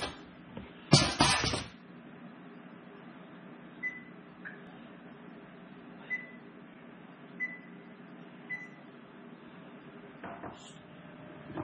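Stainless roasting pan with a wire rack set down on a countertop with a metallic clatter about a second in, then about five short electronic beeps from the oven's control panel as the oven is set to preheat.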